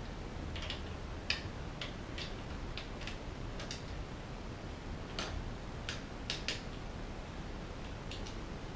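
About a dozen light clicks at uneven intervals as a hex key works the bolts of a bicycle handlebar stem.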